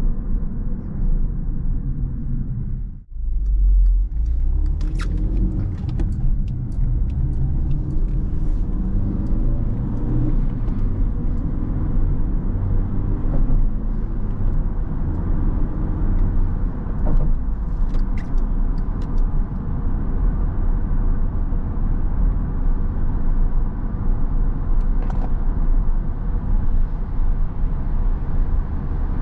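Cabin sound of a 2011 Skoda Octavia II's 1.6-litre four-cylinder petrol engine and its tyres on the road while driving: a steady low rumble. The sound drops out briefly about three seconds in, and a few faint clicks come through.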